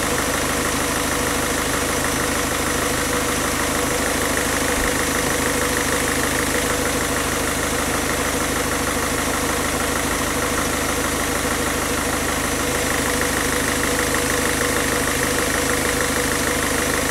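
1.6 HDi diesel engine idling steadily while running on injector cleaner fed straight to the injection system, cleaning the injectors. Its note has settled and sounds relaxed, which the mechanic takes as a sign the cleaning is working.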